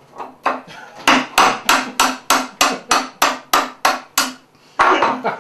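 A kitchen knife being driven again and again into the lid of a tin can to open it without a can opener: a rapid run of sharp metallic knocks, about three a second, then a short pause and a couple more.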